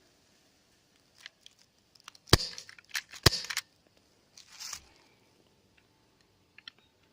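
Two sharp airsoft gun shots about a second apart, with lighter clicks around them and a brief rustle afterwards.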